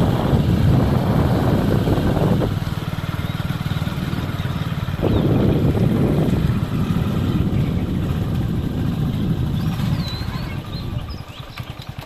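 Motorcycle engine running while riding along a rough road, with wind on the microphone. The engine sound drops about two and a half seconds in, picks up again halfway through, and eases off near the end as the bike slows.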